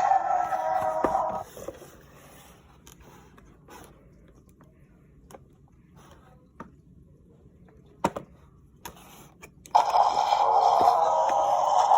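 Parasaurolophus toy playing its electronic dinosaur call through a small speaker. The call ends about a second and a half in and starts again near the end. In between come quiet handling clicks and a sharp knock about 8 seconds in.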